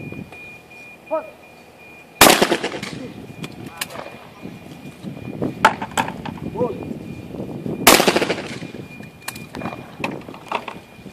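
Two loud shotgun shots about six seconds apart, each with an echoing tail. Several fainter cracks come between and after them.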